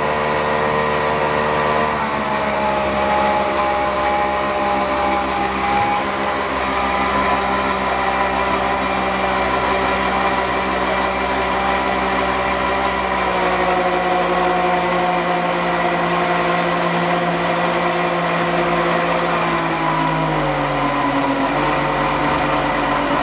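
Yamaha 60 hp two-stroke outboard motor running at cruising speed with the boat under way, over a steady rush of water and wind. Its pitch eases down a little in three steps: about two seconds in, around halfway, and near the end.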